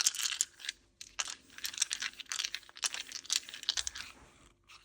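Small wooden casting charms rattled together in cupped hands, a quick, uneven run of light clicks, as they are shaken and cast for a reading.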